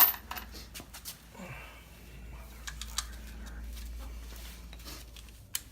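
Scattered light clicks and knocks of hand tools and parts being handled during a teardown, with a sharp click right at the start, over a low steady hum.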